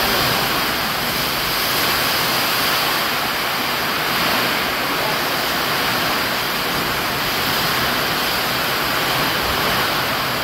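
Heavy rainstorm: a loud, steady downpour, with rain falling on the corrugated metal roof overhead.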